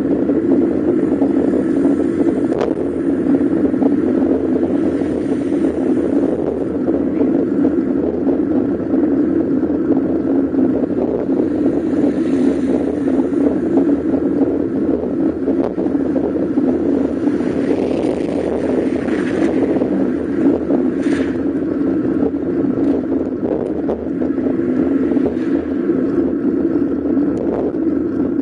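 Steady rushing wind and road noise on a camera moving along a paved road, an even, unbroken drone.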